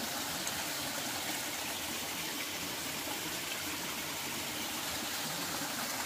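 Mountain valley stream flowing, a steady even rush of water.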